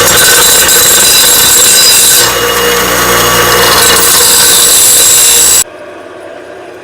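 Power drill boring a bolt hole through steel square tubing: a loud, steady grinding whine that shifts in tone a little over two seconds in and cuts off abruptly near the end.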